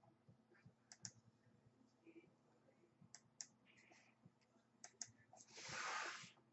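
Faint computer mouse clicks, a few scattered single and double clicks, then a brief louder rushing noise near the end.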